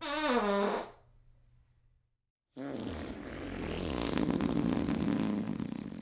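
Wet, diarrhea-style fart sound effects: a short fart under a second long that falls in pitch, then after a pause of about a second and a half a long, rough, sputtering fart lasting about four seconds.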